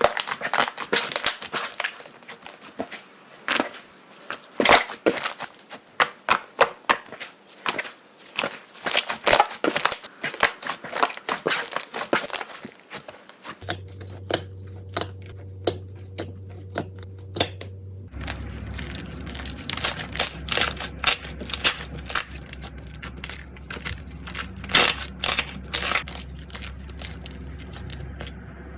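Slime being squeezed and pressed by hand, making dense runs of sharp crackles and small pops, as in crunchy slime. The crackling thins out for a few seconds around the middle, then picks up again.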